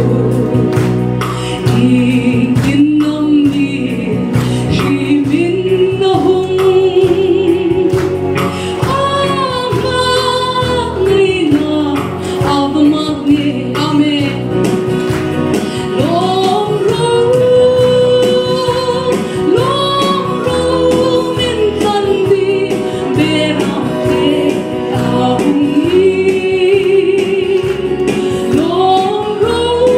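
A woman singing a gospel song into a handheld microphone, her voice amplified, with long held notes that waver in pitch, over an instrumental accompaniment with a steady beat.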